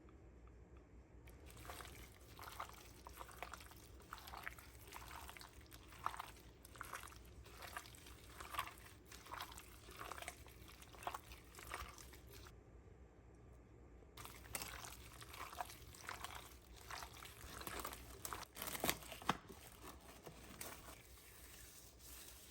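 Soft, repeated rustling handling noises in the kitchen, about one to two strokes a second, pausing for about two seconds midway and then resuming.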